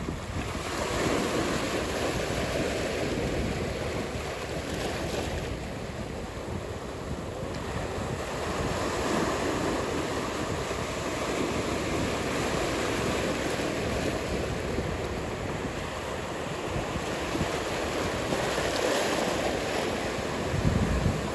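Ocean surf: waves breaking and washing in, the noise swelling and easing every few seconds. A brief low rumble of wind on the microphone comes near the end.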